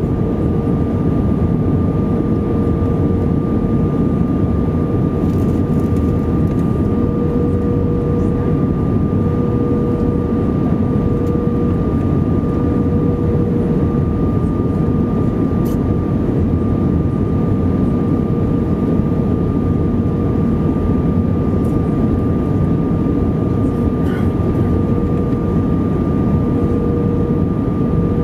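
Cabin noise inside an Airbus A320 on approach: a steady rush of engine and airflow noise with two constant whining tones, one low and one higher, over the top.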